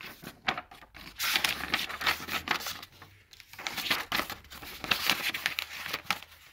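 Sheets of printer paper rustling as pages are flipped over by hand, several rustles in a row.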